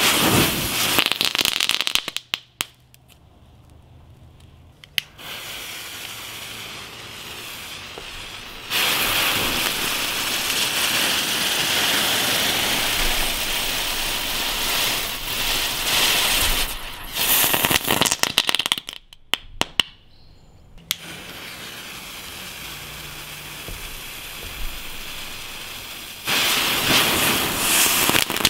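Broekhoff Fire Eyes, a small Class F1 ground firework, spraying sparks with a loud hiss that comes in three spells with quieter stretches between, and crackling pops near the end of the middle and last spells.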